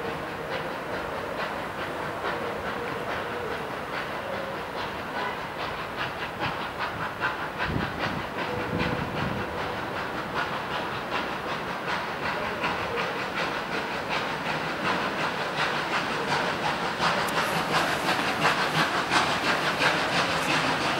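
Ol49 two-cylinder steam locomotive working a train, with rhythmic exhaust chuffs over a steady steam hiss. The chuffs grow louder as the engine approaches.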